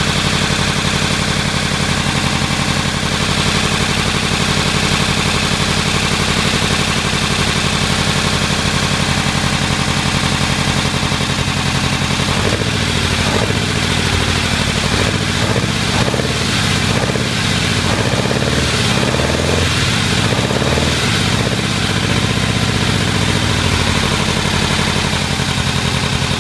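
Rover V8 engine running on an engine stand just after start-up, loud and steady at idle; from about halfway through, its note rises and falls for around ten seconds before settling back to idle.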